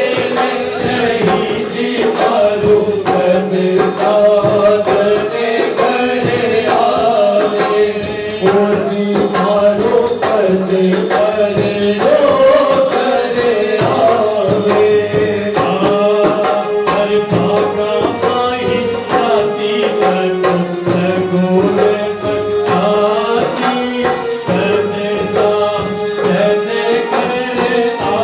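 Phag rasiya folk song: voices singing over a steady beat of hand percussion with a jingling, tambourine-like sound.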